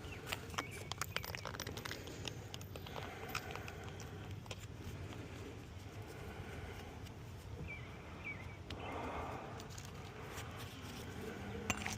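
A scattered series of light clicks and knocks, thickest in the first few seconds, over steady outdoor background noise, with a short high chirp about eight seconds in.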